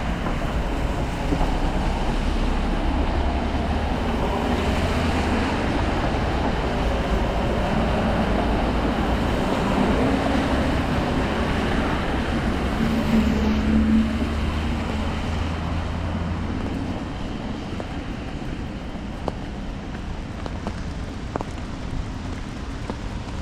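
Road traffic on a rain-wet city street: engine rumble with tyres hissing on wet asphalt. It eases off about two-thirds of the way in, leaving a quieter wash with a few light ticks.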